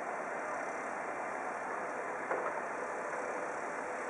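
Steady distant engine noise from idling fire engines, with a faint knock about two seconds in.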